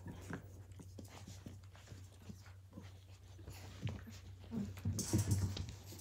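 Australian cattle dog puppies play-fighting, with small puppy vocal sounds and scuffling, louder about five seconds in. A steady low hum runs under it.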